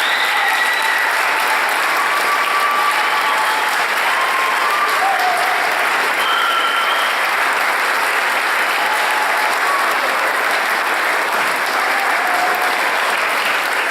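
Concert audience applauding steadily after a band performance, dense and even throughout.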